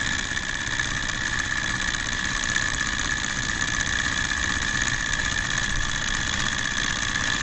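Small ethanol-heated Stirling (hot-air) engine with aluminium flywheel discs running steadily at about 1,300 rpm, a continuous even mechanical whir.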